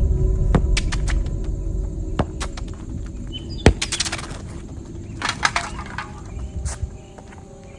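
A series of sharp knocks and clatters from a basketball bouncing and striking a can, the loudest knock about three and a half seconds in. A low rumble fades away over the first few seconds.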